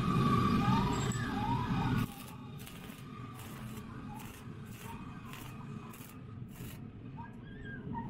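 Electric arc welding on a steel cage frame: a loud steady crackle with a low rumble, which drops off sharply about two seconds in and gives way to quieter sharp snaps about twice a second. Short rising-and-falling animal calls come near the start and again near the end.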